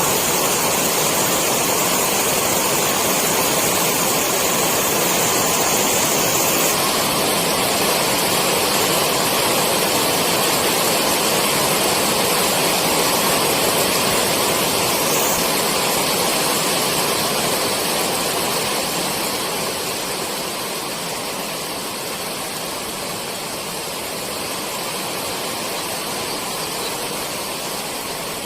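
Steady rainfall, a dense even hiss, easing slightly about two-thirds of the way through.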